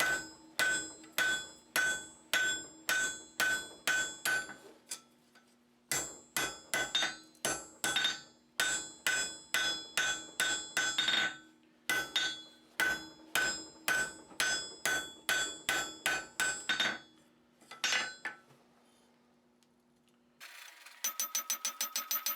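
Hand hammer forging hot half-inch square iron bar on an anvil, with ringing anvil tones. The blows come in three runs of even strikes, about two to three a second, separated by short pauses, then a couple of single blows. Near the end a different fast, even ticking starts.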